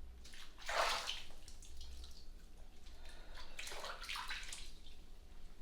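Bathwater sloshing in a bubble-filled tub, in two swells: one about a second in and another around four seconds in.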